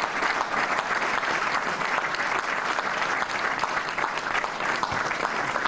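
Audience applauding: many hands clapping together at an even level.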